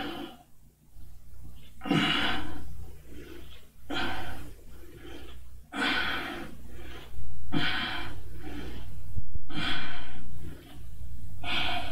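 A man breathing hard from exertion during prone back exercises, with a loud breath about every two seconds.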